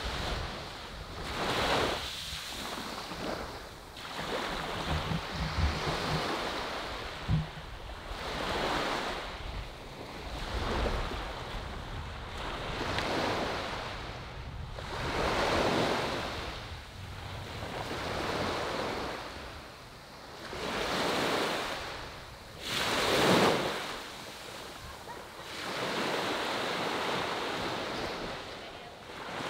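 Small waves breaking and washing up a sandy beach, each swelling and fading every two to three seconds. The loudest breaks about three quarters of the way through.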